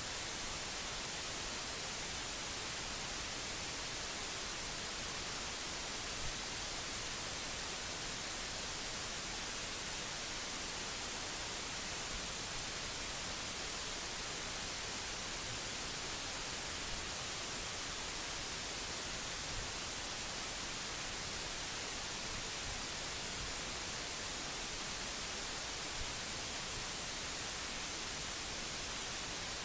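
Steady, even hiss with nothing else: the noise floor of an open recording microphone, with a couple of tiny clicks.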